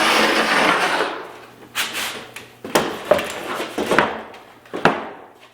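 A homemade wooden pallet table being handled and set down. A scraping rush comes first, then a series of sharp wooden knocks and clunks roughly a second apart.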